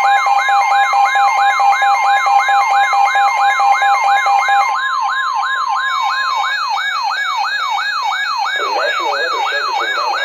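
Emergency alert tones: a fast, repeating electronic siren whoop, about three rising sweeps a second, over the steady two-tone EAS attention signal. The steady tone stops about halfway through, and the whooping carries on alone.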